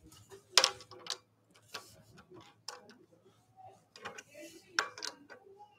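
Irregular sharp clicks and knocks of an oak bowl and a metal SK100 scroll chuck with gripper jaws being handled as the bowl's base is seated in the jaws, the lathe not running. The loudest knocks come about half a second in and near the end.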